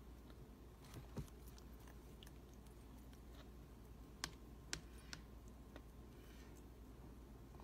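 Near silence: quiet room tone broken by a few faint, sharp clicks, two of them about half a second apart midway through.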